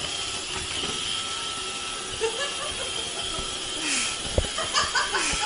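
Robot vacuum cleaner running with a steady whirring hiss and a faint high whine as it carries a cat, with a few short knocks near the end.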